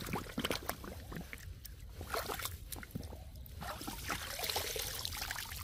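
Shallow water sloshing and trickling, with scattered small knocks and splashes, as an eel tube trap is lifted out and handled.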